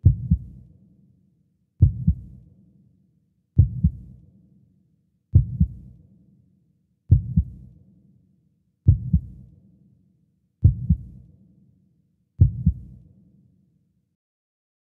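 Heartbeat sound effect: slow, deep lub-dub double thumps, eight in all, about one every second and three-quarters, stopping near the end.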